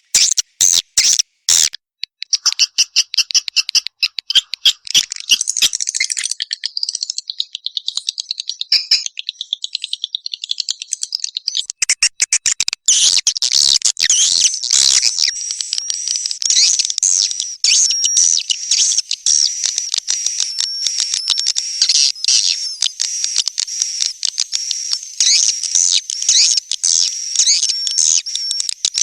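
Swiftlet lure-call recording of the kind played to draw edible-nest swiftlets into a bird house. It opens with a quick run of sharp clicks, then turns into dense, high-pitched twittering and chirping. About 13 seconds in it grows into a louder, busier chorus of chirps with repeated short rising-and-falling notes.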